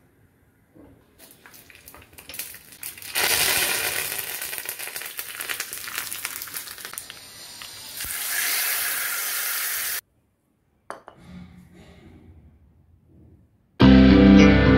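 Mustard seeds crackling and popping in hot oil in a small tempering pan: scattered pops at first, building to a dense, loud spluttering about three seconds in. Later the hot tempering sizzles as it is poured into the mango curry. It cuts off suddenly, and guitar music comes in near the end.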